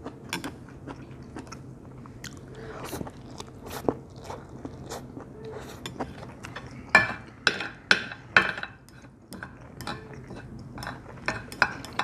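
Close-up chewing and crunching of a mouthful of stir-fried instant noodles with kimchi: a steady run of short mouth clicks, with a few louder crunches about seven to eight and a half seconds in.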